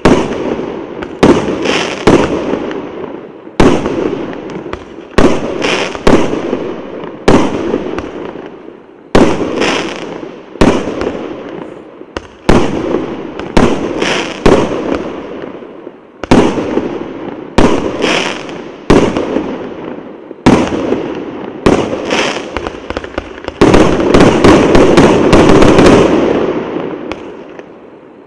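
A 142-shot fan-pattern fireworks cake firing shot after shot, a sharp bang about every second or so, each followed by fading crackle. Near the end comes the loudest stretch, a dense run of rapid bangs and crackling that then dies away.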